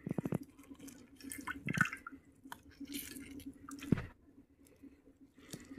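A knife peeling a wet green fruit in short scraping strokes, with a few sharp clicks and drips into a pot of water below. A faint steady hum runs underneath.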